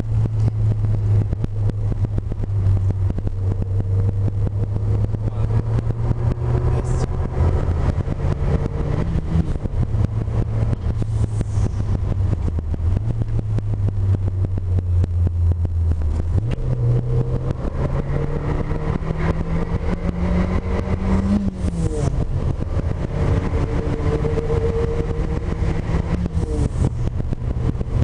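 Lancia Delta's engine and road noise heard from inside the cabin while driving. The revs climb steadily for several seconds past the middle and then drop suddenly, as at a gear change.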